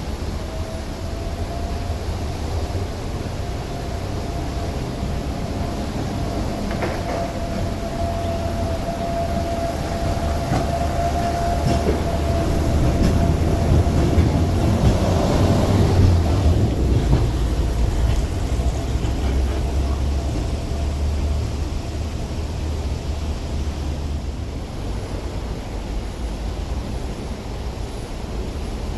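Hong Kong Peak Tram's Von Roll 5th-generation funicular car running past close by on its rails, a low rumble of wheels and track with a steady thin whine. It gets louder as the car comes alongside about halfway through, then the whine fades and the rumble eases as it moves on.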